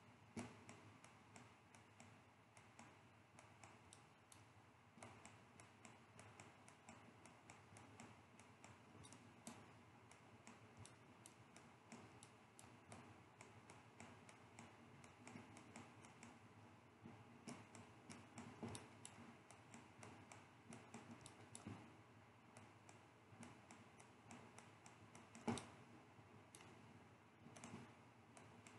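Near silence with faint, irregular clicks of a computer mouse and keyboard, one a little louder about 25 seconds in.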